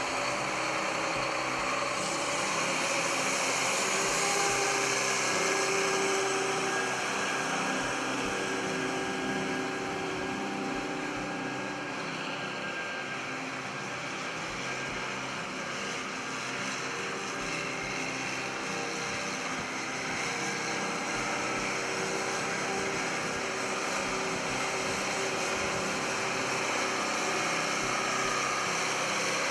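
Case IH 485 Quadtrac tractor's diesel engine running steadily at idle.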